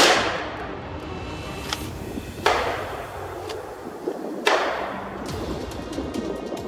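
Scoped hunting rifle firing three shots about two seconds apart, each sharp report followed by a long echo dying away.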